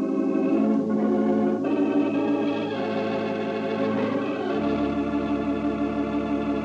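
Organ playing a slow run of held chords that change every second or so, with a deep bass note entering about halfway through.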